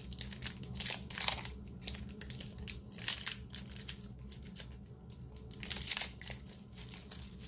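Plastic wrapper of a 2015 Score football card pack crinkling and tearing as it is opened by hand, in irregular crackly bursts.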